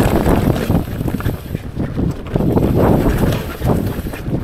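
Mountain bike riding fast down a rough dirt and rock trail: wind buffeting the microphone, tyres rolling over dirt and rock, and irregular knocks and rattles from the bike over the rough ground.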